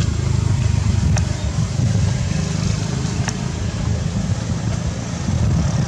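Wind buffeting the microphone: an uneven low rumble throughout, with two faint ticks, one about a second in and one about three seconds in.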